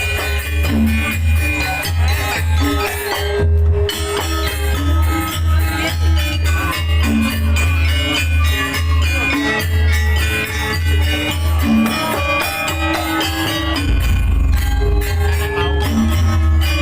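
Janger opening music played loud through a sound system: a heavy bass beat about twice a second under jingling, rattling percussion and melodic pitched tones.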